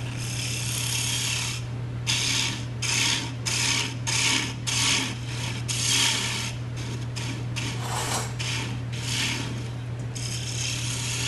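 A gouge cutting spinning wood on a lathe in a series of short passes, each a hiss of shavings lasting under a second, over a steady low hum. The cuts take the lid's joint down a little at a time to fit.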